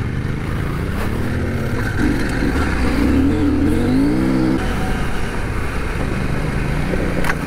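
CF Moto 800MT's parallel-twin engine chugging along at low revs in second gear, the revs rising and falling several times in the middle as the throttle is worked.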